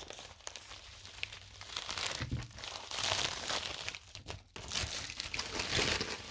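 Packaging crinkling and tearing by hand as a mailed package is unwrapped, in irregular rustling bursts with a brief lull partway through.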